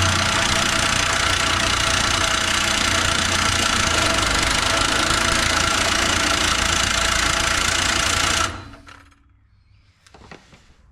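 Cordless DeWalt reciprocating saw (Sawzall) running steadily as its blade cuts into the old steel exhaust, stopping abruptly about eight and a half seconds in.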